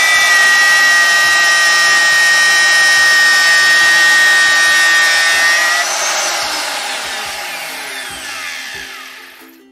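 Electric router running at full speed with a steady high whine, its bit cutting a groove into a Corian countertop along a crack. About six seconds in it is switched off, and the whine falls in pitch and fades as the motor spins down.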